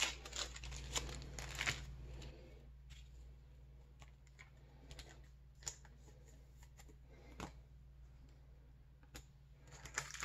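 Soft handling noise of trading cards and plastic card sleeves: quick light clicks and rustles, busiest in the first two seconds, then a few isolated faint clicks. Near the end comes a brief rustle as a hand reaches into the card box.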